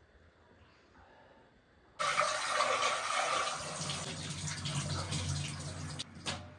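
Water running from a tap into a sink, starting suddenly about two seconds in as a steady rush, then easing off near the end.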